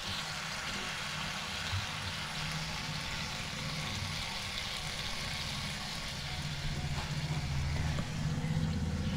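A kombadi vada deep-frying in hot oil in a kadhai, a steady sizzle, the vada puffed up in the oil. A low hum grows louder in the last few seconds.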